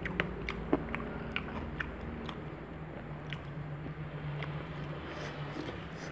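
Close-up eating sounds of a person chewing and biting food, with a scatter of small sharp clicks and crunches.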